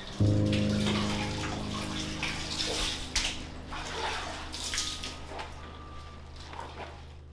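Water running and splashing. Just after the start, a low sustained musical drone comes in suddenly and slowly fades.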